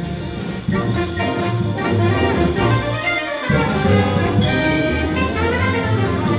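A large jazz ensemble plays cool jazz live: brass, saxophones, clarinets and strings over upright bass and drums. The bass drops out for a moment about three seconds in.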